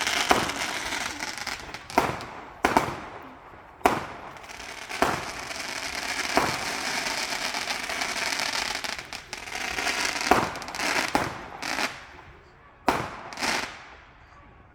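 Fireworks going off: a dozen or so sharp bangs over continuous crackling and hissing, dying away near the end.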